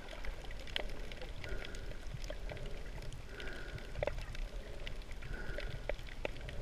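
Underwater ambience picked up by a camera in shallow rocky water: a steady low rumble of water movement with scattered clicks and crackles, and a brief muffled tone that recurs about every two seconds.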